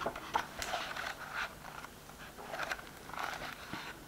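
Pages of a hardcover illustrated book being flipped by hand: a series of soft paper rustles and flicks.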